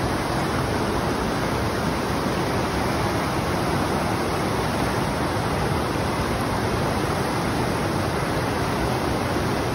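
Fast mountain stream rushing over boulders: a loud, steady rush of whitewater.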